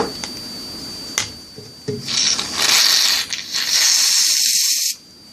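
Aerosol shaving cream can spraying in two long hissing bursts, each over a second, after a small click a little past a second in.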